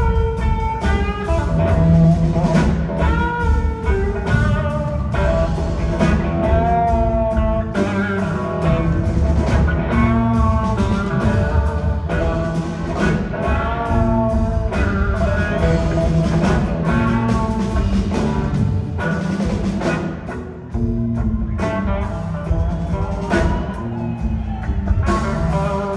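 Live blues-rock band playing: an electric guitar lead with bending, gliding notes over bass and drums.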